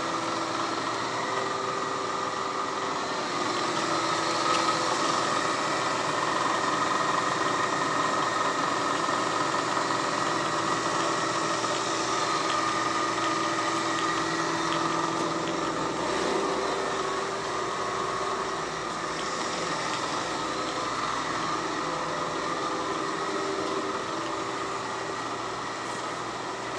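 DoAll LT-13 toolroom lathe running steadily under power, a whirr with several steady whining tones from the spindle drive and gearbox. The tones shift about two-thirds of the way through.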